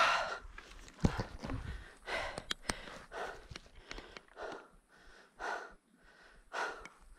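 A person breathing hard, with loud, noisy breaths coming steadily about once a second. A few sharp clicks fall between the breaths about two and a half seconds in.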